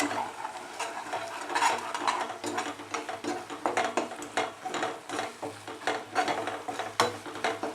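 A utensil stirring and scraping crumbled idli with sugar syrup and ghee in a nonstick pan: an irregular run of short scrapes and light knocks.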